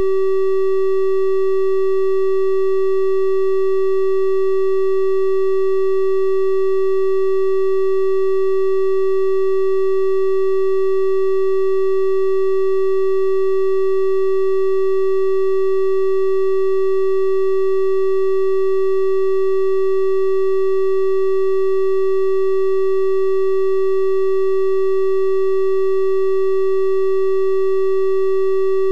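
Steady electronic test tone: a 384 Hz triangle wave held at one constant pitch and level, with faint higher overtones above the main note.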